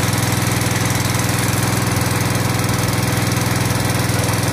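Engine-driven 3-inch water pump running steadily just above idle while pumping water through the hoses into the barrier's tubes.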